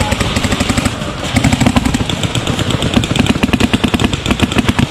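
Paintball markers firing in rapid strings of sharp pops, about ten shots a second, with a brief lull about a second in.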